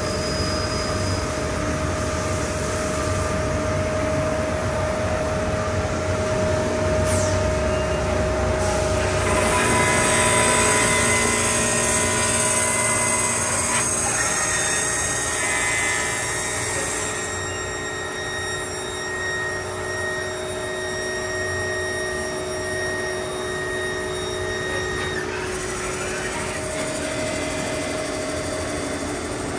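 Tornos Sigma 32/6 CNC sliding-head lathe running a machining cycle: a steady machine whine made of several held tones, with a hiss that grows louder partway through. The tones step to new pitches a few times as the cycle goes on.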